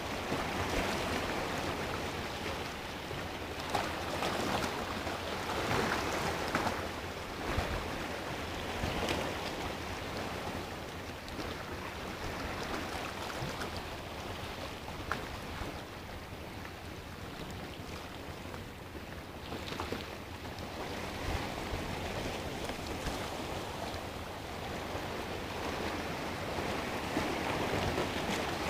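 Sea waves washing over and around shoreline rocks, the surf swelling louder every few seconds and easing off between surges.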